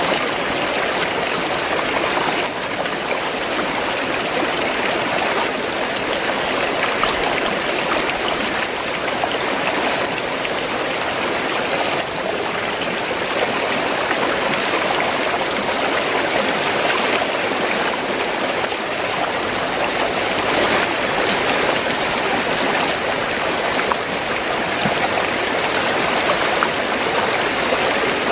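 Fast-flowing water gurgling steadily, an even, unbroken wash of sound.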